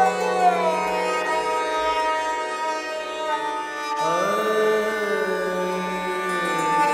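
Indian classical music: a melody of long held notes that glide between pitches over a steady drone, with a new phrase entering about four seconds in.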